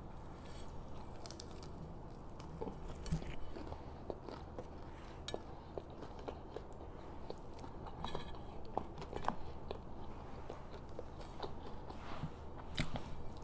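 Close-miked chewing and biting of food: scattered small crunches and mouth clicks, one after another.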